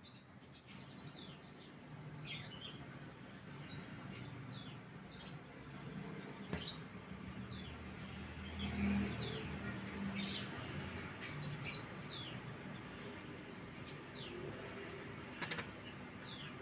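Small birds chirping: short, high chirps that sweep downward, repeated irregularly, over a faint low hum.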